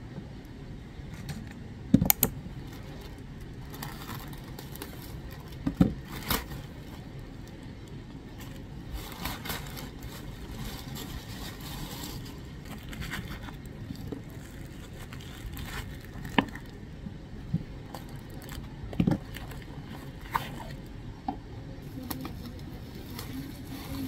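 Parcel being unwrapped by hand: a plastic mailer bag, bubble wrap and a cardboard box rustling, crinkling and scraping, with a few sharp knocks as things are set down or bumped on the desk.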